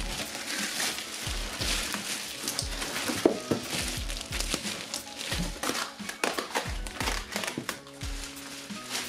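Background music with a steady beat, over the crinkling of the clear plastic film wrapped around a digital piano keyboard as it is lifted out of its box and handled.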